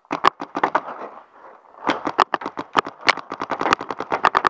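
Paintball markers firing in rapid strings of sharp pops, about ten shots a second: a short burst, a brief pause, then a longer run.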